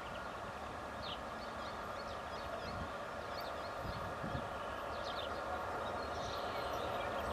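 Distant 2TE116 two-section diesel locomotive approaching under power, its engines a steady drone that slowly grows louder, with birds chirping over it.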